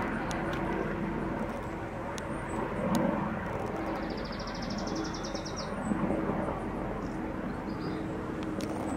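Outdoor background noise with a steady low hum. About four seconds in, a high, rapid trill of evenly spaced pulses rises slightly over about two seconds.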